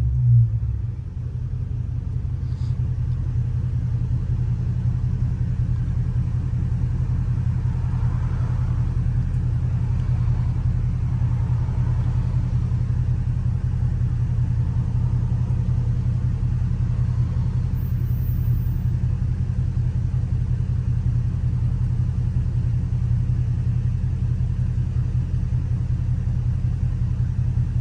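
Catless 6.4-litre HEMI V8 of a widebody Dodge Scat Pack on the move, its exhaust a steady low rumble, with a brief swell right at the start.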